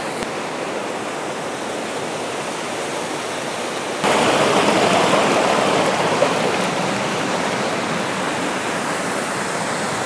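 Water of a rocky stream and small waterfall rushing steadily, a continuous noise that jumps louder about four seconds in.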